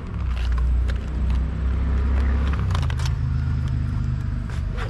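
A nearby engine running with a low, steady rumble that shifts up slightly in pitch about halfway through. Over it come a few light clicks and taps of the plastic line set cover being handled.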